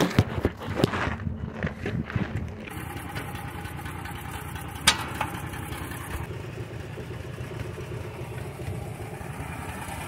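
An engine idling steadily, with knocks and handling clatter in the first two or three seconds and one sharp click about five seconds in.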